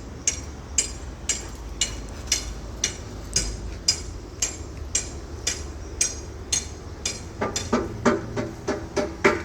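Metal being struck with a hammer in a steady rhythm, about two sharp ringing blows a second, over a low steady hum. Near the end, heavier, lower-sounding blows come in between them, more quickly.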